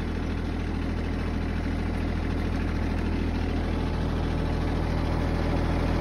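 Branson 2610H compact tractor's three-cylinder diesel engine idling steadily.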